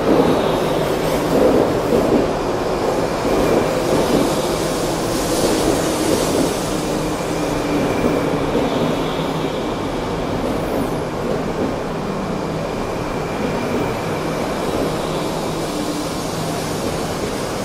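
JR East 200 Series Shinkansen train pulling into the platform, its cars rolling past with a steady rumble and a faint high squeal as it slows, gradually growing quieter.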